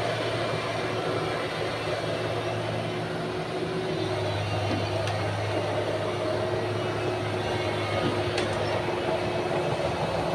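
Excavator's diesel engine running steadily, with an even low hum and a few steady higher tones.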